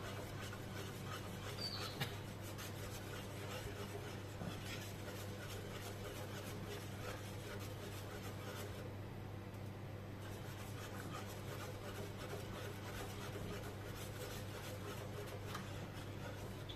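A spoon stirring heating milk in a pot, scraping and rubbing against the pot's bottom and sides in a steady run of soft scratches, over a steady low hum.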